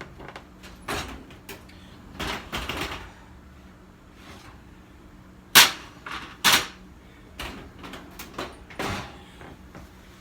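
Kitchen clatter as bread is taken out of the oven: a string of sharp knocks and clacks of cookware being handled. The two loudest come about a second apart, a little past halfway.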